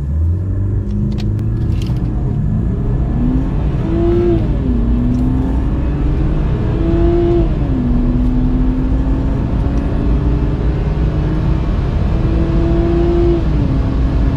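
A car engine at full throttle accelerating from a standstill. Its pitch climbs steadily in each gear and drops sharply at three upshifts, the last after a long, slow pull.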